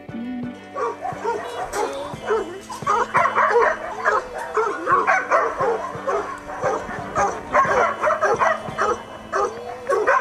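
Many dogs barking and yapping together in a dense, overlapping chorus, starting about a second in, with steady background music underneath.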